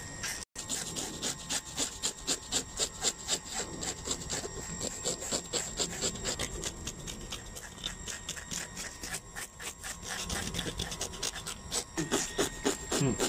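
Knife blades scraping scales off a python's skin in quick repeated strokes, about four a second.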